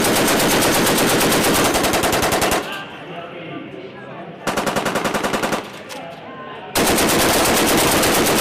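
Machine gun fired in three bursts of rapid automatic fire: a long burst of about three seconds at the start, a short burst of about a second near the middle, and another long burst starting about seven seconds in.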